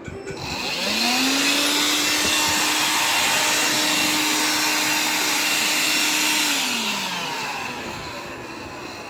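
Vacuum cleaner switched on, its motor spinning up to a steady high-pitched whine, running for about five seconds, then switched off and winding down as it fades.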